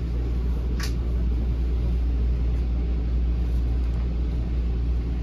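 Steady low rumble of an NJ Transit multilevel passenger coach running along the rails, heard from inside the car, with a short sharp sound about a second in.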